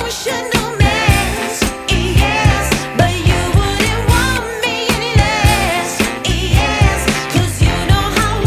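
Background music: a pop song with singing over a steady beat.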